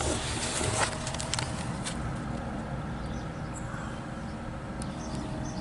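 12 V compressor fridges running with a steady hum and a faint high tone, with a few light clicks and knocks.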